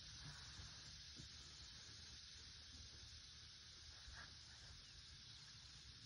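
Near silence: a faint steady hiss, with a faint tick about four seconds in.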